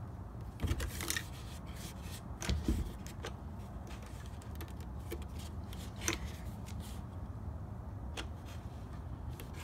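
Plastic clicks and knocks as the handle of an Echo PB-2520 handheld leaf blower is handled and moved on its knob-fastened pivot. A few knocks come in the first three seconds and single clicks come near six and eight seconds in.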